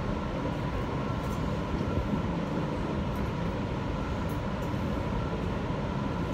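A Kawasaki R160B subway car with Siemens propulsion running along elevated track, heard from inside the car: a steady rumble of wheels on rail with a thin steady whine over it, and a few faint clicks.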